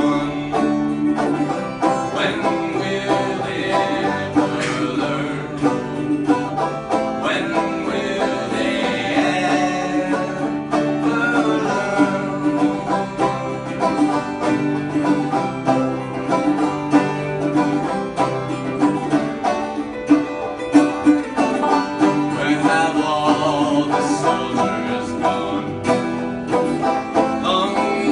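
Banjo and guitar played together in a live acoustic folk arrangement, the banjo picked over steady strummed chords.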